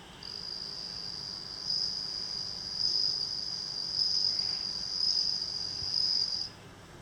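Male bell cricket (suzumushi) singing: one long, high, steady trill that swells in loudness several times, starting just after the beginning and stopping abruptly about half a second before the end.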